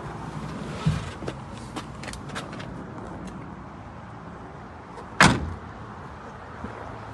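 A mini truck's cab door shut with one solid thud about five seconds in, after a few light clicks and handling knocks.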